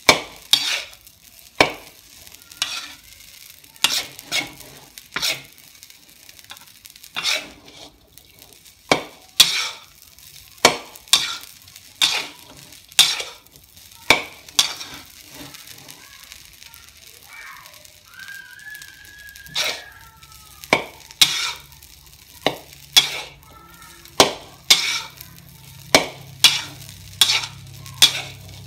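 Metal spatula scraping and striking a metal wok as fried rice is stirred and turned, sharp clanks about once a second, with a light sizzle of the rice frying underneath.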